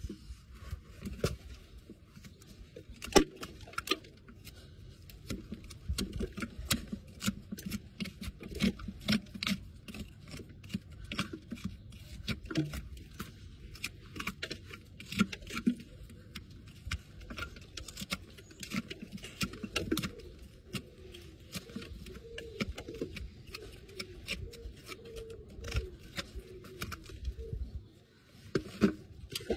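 Farrier's hoof knife scraping packed dirt from a horse's hoof and paring the sole, in quick, irregular strokes with sharp clicks.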